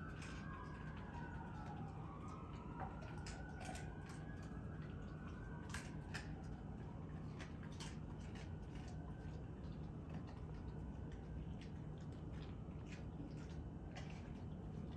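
Scattered sharp clicks and ticks of a bull terrier's mouth and jaws as it licks and snaps up the last scraps of a raw quail. A siren wails faintly for the first few seconds, rising and falling over a steady low hum.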